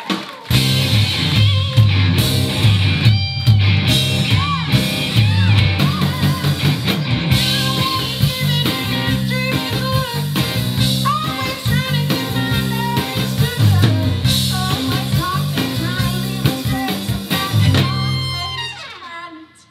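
A live blues-rock band playing loudly, with a Gibson SG electric guitar, electric bass and drum kit. The band comes in hard about half a second in and rings out near the end.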